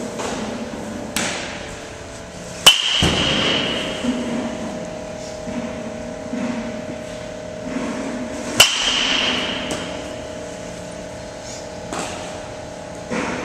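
Baseball bat hitting pitched balls twice, about six seconds apart, each a sharp crack with a short ring after it. Fainter knocks fall in between, over a steady hum.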